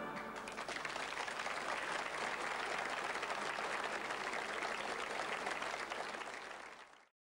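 Studio audience applauding as the band's last chord dies away; the applause fades and cuts off near the end.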